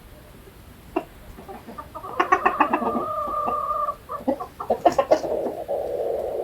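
Chickens clucking and calling: rapid clucks under a drawn-out call of about two seconds, then another long, lower call near the end.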